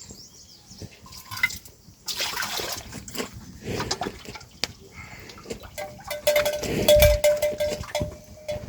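Water splashing, with knocks and clatter of vessels being washed by hand, and a held ringing note in the last three seconds.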